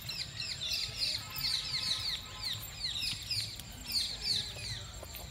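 Small birds chirping, many short falling high notes in quick overlapping succession.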